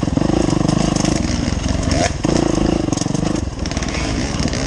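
Off-road dirt bike engine running under throttle, close up from the rider's helmet camera, the revs dropping briefly about two seconds in and again near three and a half seconds as the throttle is rolled off and back on.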